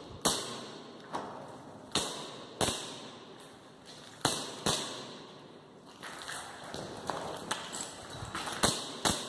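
Air-powered sport gun (paintball or airsoft marker) firing single shots at targets, a sharp crack every half second to second and a half, irregularly spaced, with fainter strikes between them in the later part.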